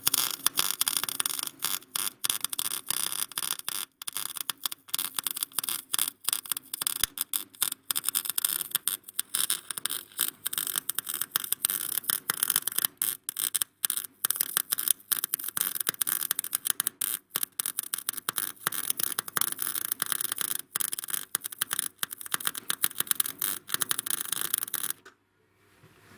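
Electric arc welding: a steady, irregular crackling hiss with many brief breaks as a nut is welded onto a stuck engine stud so it can be turned out. The crackle stops abruptly near the end.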